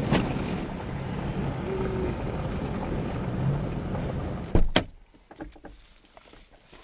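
Steady rumble of a vehicle driving on a gravel road, heard from inside the cab. About four and a half seconds in there is a sharp knock, then it goes much quieter, with only a few faint small clicks.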